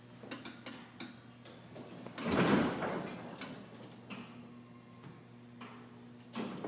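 Elevator doors sliding and clattering, with a louder rush of door movement about two seconds in, scattered clicks and a knock near the end, over a steady low hum.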